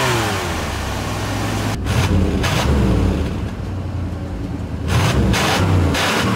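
1990 Chevrolet Silverado SS454's 454 big-block V8 running through its exhaust. The engine revs up right at the start, settles to a steady idle, and is blipped on the throttle a few times: twice a couple of seconds in and three times near the end.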